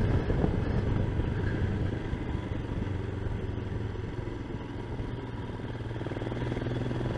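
Motorcycle engine running steadily while riding along, with wind noise on the microphone; the engine eases off around the middle and picks up again near the end.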